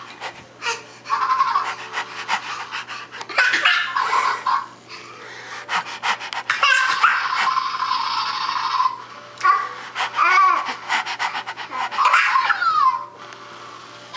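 A toddler panting like a puppy in repeated quick breathy bursts, with a few short rising-and-falling yelps near the end.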